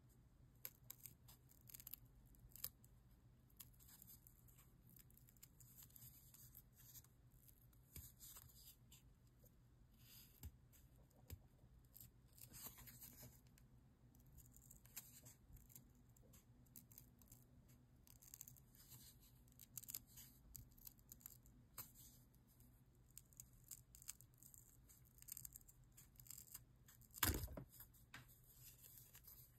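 Small pointed scissors snipping through a piece of leather, many short, quiet cuts following a drawn outline. One louder knock comes near the end.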